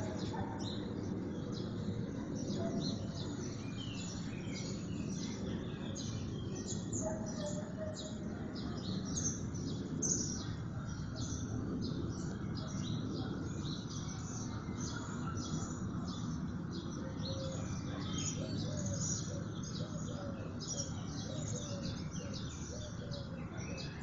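Many small birds chirping together in a dense, continuous chorus of short high notes, over a steady low background rumble.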